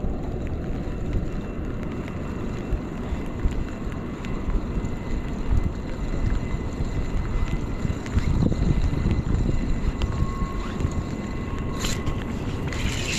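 Wind buffeting the microphone: a steady, gusting low rumble, with a sharp click near the end.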